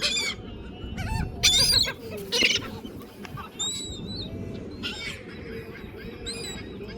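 Gulls calling: a series of short, harsh cries, loudest and most frequent in the first two and a half seconds, then sparser, over a steady low background rush.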